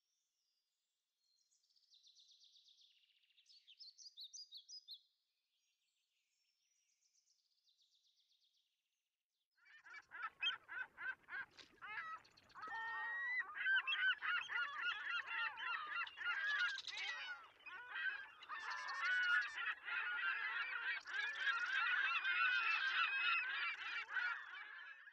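A flock of birds calling: a few faint high chirps in the first seconds, then from about ten seconds in many loud overlapping calls.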